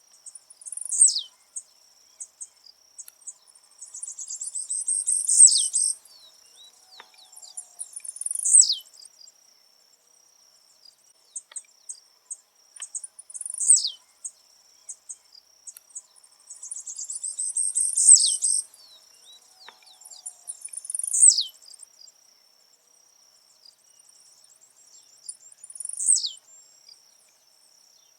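Blue-black grassquit (tiziu) singing: short, sharp notes that sweep steeply down in pitch, repeated every three to five seconds, twice led into by a run of rapid buzzy ticks that builds up in loudness. A faint steady high tone runs underneath.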